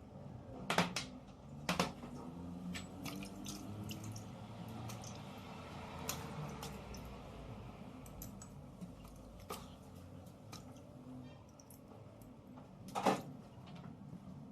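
Small parts being handled with sharp clicks and knocks, the loudest about a second in, about two seconds in and near the end, over a low wash of liquid sounds like parts being rinsed.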